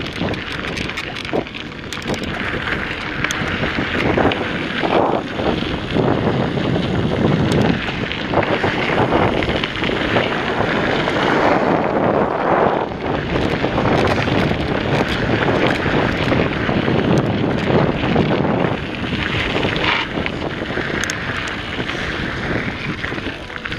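Wind buffeting the action camera's microphone over the rumble of a mountain bike's tyres rolling on a dirt trail, with frequent small rattles and clicks from the bike.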